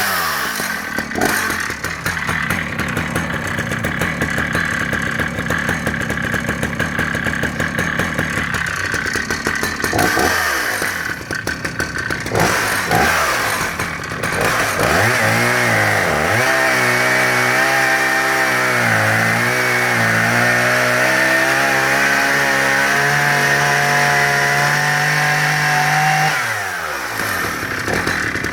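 Husqvarna 480CD 77cc two-stroke chainsaw idling with a rough, even beat, blipped up briefly a few times. It is then run up to high revs and held there for about ten seconds before dropping back to idle near the end.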